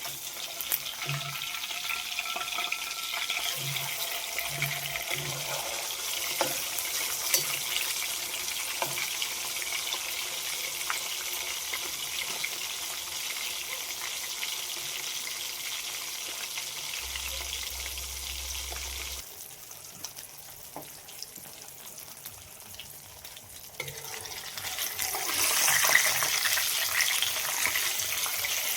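Food sizzling and crackling as it fries in hot oil in a pan. The sizzle drops away about two-thirds of the way through and comes back louder near the end.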